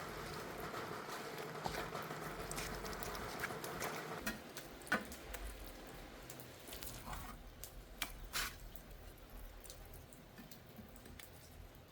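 Wet working sounds on a tiled floor: a steady wet rubbing for the first four seconds or so, then a few sharp clicks and light knocks.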